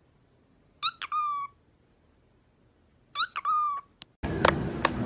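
Cockatiel calling loudly three times, about two seconds apart. Each call is a quick rising squeak that runs into a held, whining note. Near the end the calls stop and a louder stretch of outdoor noise with a string of sharp claps takes over.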